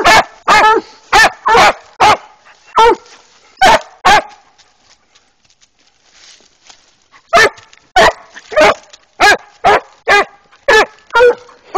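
Walker coonhounds tree-barking at a treed raccoon: loud barks about every half second, with a pause of about three seconds in the middle.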